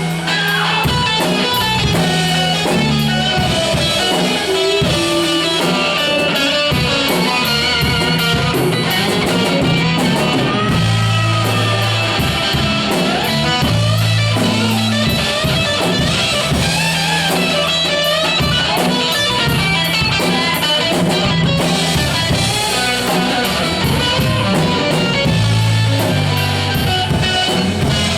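Rock band playing an instrumental passage: an electric guitar lead with bending notes over a stepping bass line and a drum kit.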